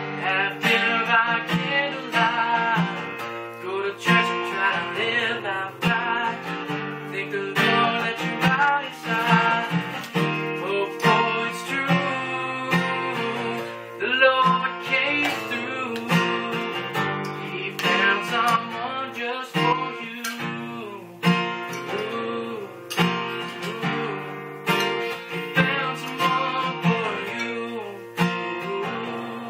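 Acoustic guitar strummed in a steady rhythm, with a man singing over it at times.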